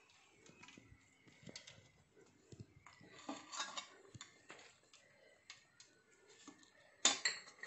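Faint rustling and light ticking of crisp fried onions being scattered by hand onto cooked rice in a steel pot, followed by a brief, louder clatter near the end.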